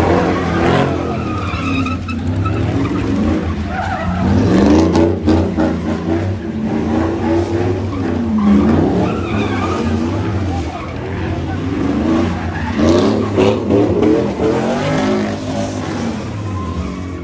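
Car engines revving, their pitch repeatedly rising and falling, with tyres skidding.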